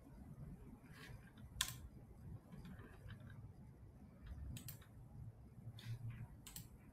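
About five faint, scattered clicks over a low room hum, the loudest about one and a half seconds in.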